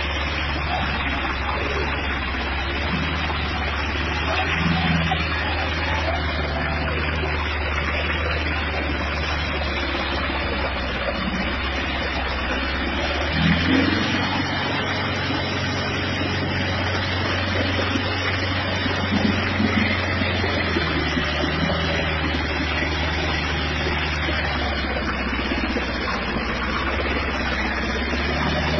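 Tractor engine running steadily under load as it drives with its front wheels reared off the ground, mixed with a constant rushing noise. The sound swells briefly about halfway through.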